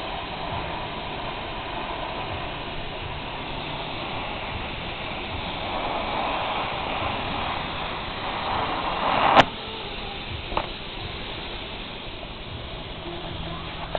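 TIG welding arc on a tube, hissing steadily and swelling over a few seconds. A sharp crack comes about nine seconds in, after which the hiss drops to a quieter level; a smaller click follows about a second later.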